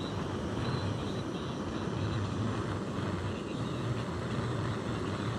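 Backpacking gas stove screwed onto a blended-fuel canister, burning under a pot: a steady hiss of burning gas.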